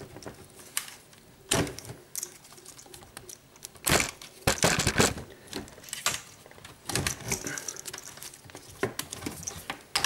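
Irregular plastic clicks and knocks as the dishwasher's pump motor is handled and worked free from its clips, with a cluster of louder knocks about four to five seconds in.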